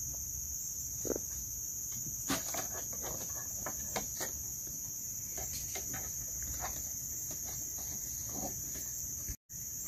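Forest insect chorus buzzing steadily at a high, even pitch, with a few faint clicks and taps over it. The sound drops out for a split second near the end.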